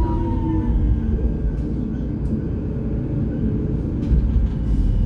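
GT8N tram running along the track, a steady low rumble, with a brief whine falling in pitch at the start.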